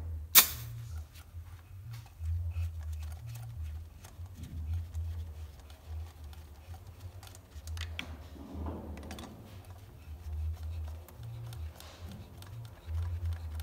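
Light clicks and knocks of a compression tester's hose and threaded adapter being handled and fitted into a spark plug hole of an Opel Z22XE 2.2 engine during a compression test. There is one sharp, loud snap about half a second in, and a low rumble comes and goes underneath.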